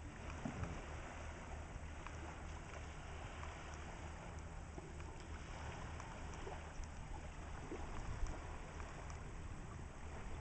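Steady rush of tidal water swirling through the reversing falls, with a steady low rumble underneath and a few faint clicks.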